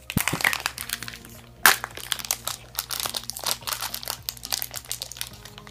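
Foil blind-bag toy packet crinkling and crackling as hands work it open, with a sharper crack about a second and a half in, over faint background music.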